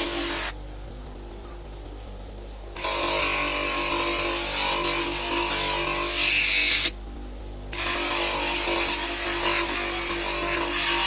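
Electric power tool running with a steady hum under a loud rushing hiss. The hiss cuts out abruptly twice, for about two seconds near the start and for under a second past the middle, while the hum carries on.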